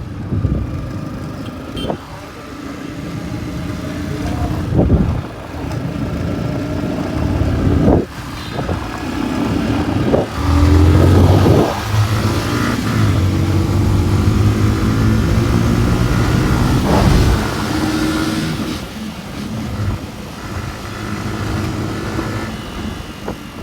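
A motorcycle engine running under way, its pitch rising and falling as it is revved and eased off, with brief drops near 8 and 10 seconds in.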